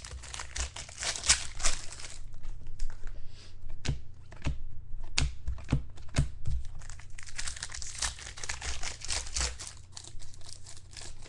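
Trading-card pack wrapper being torn open and crinkled, with a few sharp clicks of cards being handled about halfway through.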